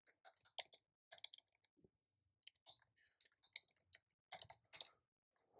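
Faint computer keyboard typing: a quick, irregular run of light keystroke clicks as a word of code is typed.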